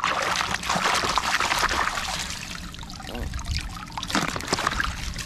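Water splashing and sloshing in a plastic basin as a plastic toy crocodile is scrubbed and swished through it by hand, most vigorous in the first couple of seconds, then lighter.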